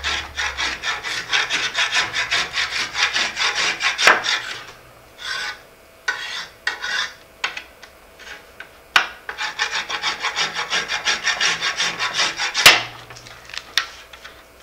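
Hand scraper scraping old, solvent-softened carpet adhesive off a boat panel in quick back-and-forth strokes. The strokes come in two fast runs with a sparser stretch between them, broken by a few sharp knocks.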